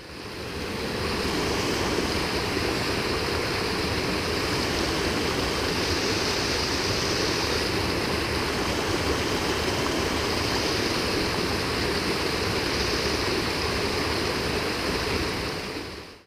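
Small waterfall on a mountain stream: a steady rush of white water falling over rocks into a pool. It fades in at the start and fades out at the end.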